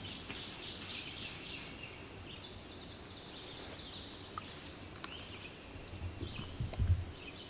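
Songbirds singing steadily in the woods at dawn, high warbling and trilling phrases one after another. Near the end come a few low thumps and some rustling, the loudest sound.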